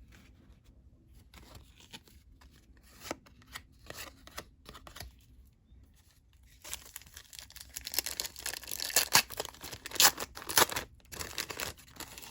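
Light clicks of trading cards being handled, then, about halfway through, a 1990-91 NBA Hoops card pack's wrapper being torn open and crinkled, with a few sharp rips near the end.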